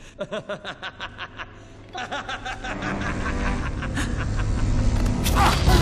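Film sound effects of an energy field holding a suspended figure: a rapid warbling pulse of about seven beats a second over a deep rumble. It grows louder and peaks in a loud burst near the end.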